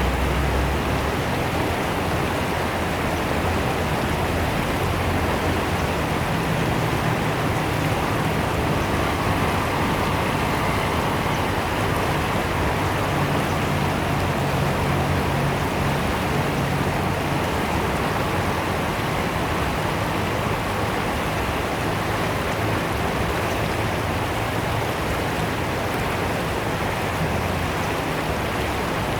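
Fast-flowing river water rushing and splashing in a steady, unbroken wash.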